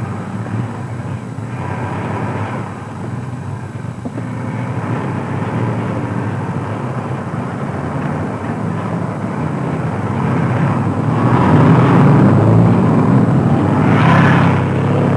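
Car engine running under way with road noise, a steady drone that grows louder about eleven seconds in.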